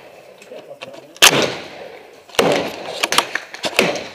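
AR-15 rifle shots: one sharp report about a second in, the loudest, and two more in the second half.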